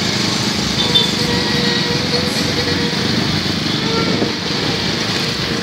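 Steady din of busy street traffic, small motorcycle engines running among cars.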